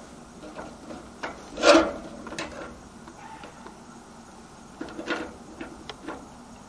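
Scattered knocks and scrapes as pieces of metal roofing are handled and set in place, with the loudest scrape about two seconds in and a smaller cluster around five seconds in.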